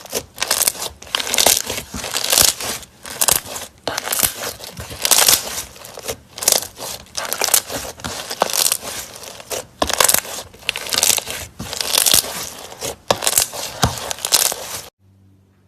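Slime being squeezed and kneaded by hand: a noisy squish with each squeeze, about one a second, cutting off suddenly near the end.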